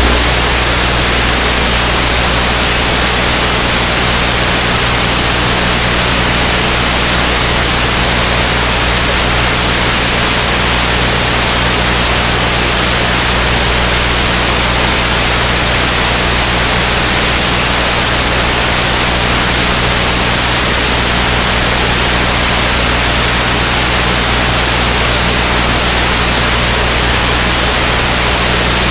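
Steady, unchanging static hiss with a low hum underneath, typical of the audio track on an analog FPV video link recording. It does not follow the jet's throttle.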